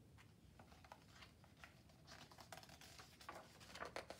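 A picture book's page being turned: faint rustling and soft taps of paper, louder in the second half.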